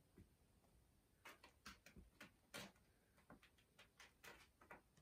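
Faint, irregular little ticks and scratches: kittens' claws catching and scrabbling on a quilted mattress cover as they play, with a dozen or so clicks in a cluster after about a second.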